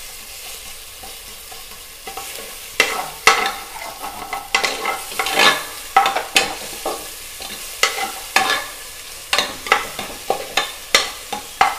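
Ginger-garlic paste, onions and curry leaves sizzling in hot oil in an aluminium pressure cooker, fried until the raw smell of the paste goes. From about three seconds in, a steel slotted spoon scrapes and clinks against the pot again and again as it stirs.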